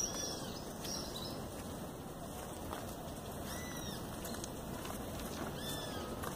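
Outdoor ambience: a steady background hiss with a few short, arched bird chirps scattered through it.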